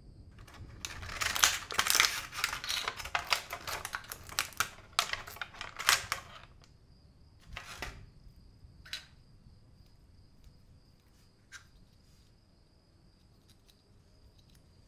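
Rapid, irregular clicking and clattering of small hard plastic and metal model parts for about five seconds, then a few separate taps.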